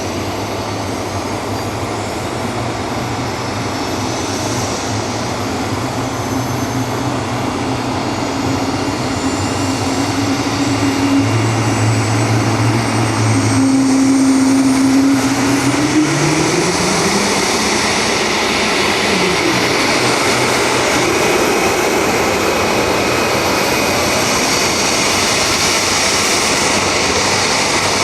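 Twin turboshaft engines of a Leonardo AW189 helicopter spooling up during start-up: a high turbine whine climbs steadily in pitch, over a low hum that rises in pitch about halfway through as the rotor speeds up.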